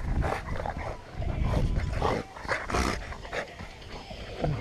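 Dogs play-fighting: short, irregular dog vocal sounds with scuffling, and a brief higher call near the end.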